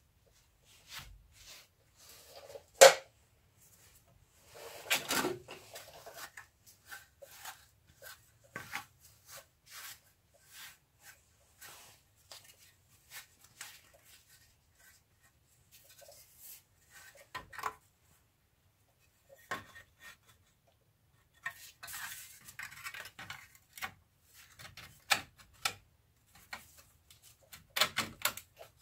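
Metal parts clinking and clattering as a steel brake dust shield and the wheel hub are handled and fitted by hand. A single sharp clank about three seconds in, a rattling clatter about five seconds in, then scattered light clinks with a few more clanks near the end.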